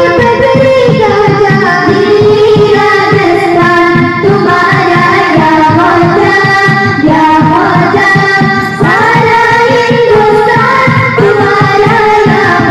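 A group of boys singing a qawwali together into microphones, with long held and gliding sung notes, accompanied by a hand drum.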